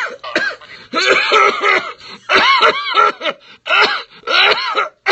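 A man's put-on coughing fit: a string of about five harsh, voiced hacking coughs and throat-clearing bursts, one after another with short gaps.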